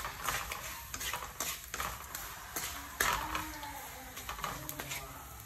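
Wooden spatula scraping and tapping against a nonstick frying pan, stirring chopped garlic and spring onion in hot oil over a light sizzle. The clicks come irregularly, with the sharpest about three seconds in.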